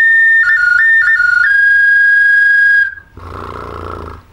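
Ceramic bird whistle (svistulka) played in a bright, clear tone: one held high note, then a quick trill flicking between two notes, then a slightly lower held note that stops about three seconds in.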